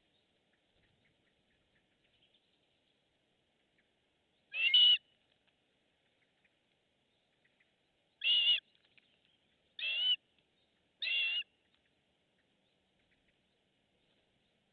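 A bird giving four short, high-pitched calls, each about half a second long. The first comes about four and a half seconds in, and the other three follow closer together later on.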